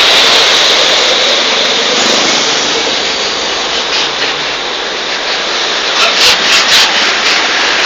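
Loud rushing road noise of traffic passing close by, dipping slightly in the middle, with a few short sharp knocks near the end.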